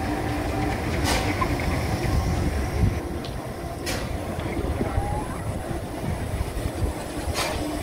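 Railway turntable rotating with a steam locomotive on its bridge: a steady low rumble with a faint hum, broken by three short sharp clanks spaced a few seconds apart.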